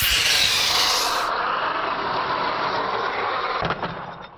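Hosim X25 brushless RC truck driven hard, its motor and tyres making a loud, steady rushing noise, with a knock about three and a half seconds in as it hits something. The sound then dies away.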